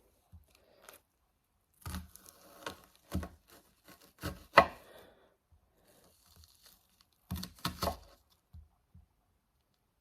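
A big kitchen knife chopping an onion: irregular clusters of short, sharp chopping strokes with quiet gaps between them, the loudest strike about halfway through.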